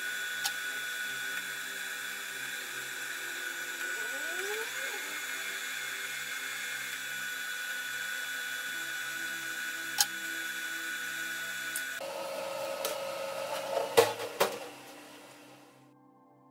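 MIG welder's wire-feed motor whining steadily as it pushes 0.8 mm welding wire through the torch cable, stopping about twelve seconds in. Then a few sharp clicks, the loudest sounds, come near the end.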